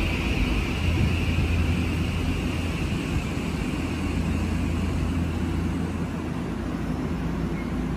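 Shin-Keisei 8800 series electric commuter train pulling in and slowing to a stop, with a steady low hum and a high whine that slowly drops and fades as it slows.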